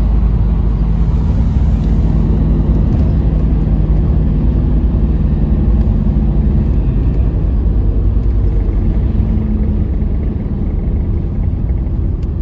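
Car on the move, heard from inside the cabin: a steady low rumble of engine and road noise, easing off slightly near the end.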